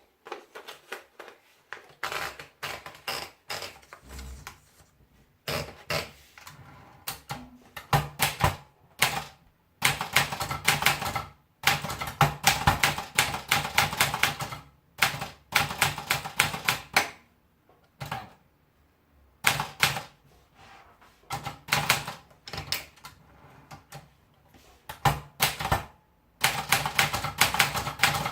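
Olympia Splendid 33 portable manual typewriter being typed on. Runs of rapid key strikes come in bursts of a second or two, with short pauses between them.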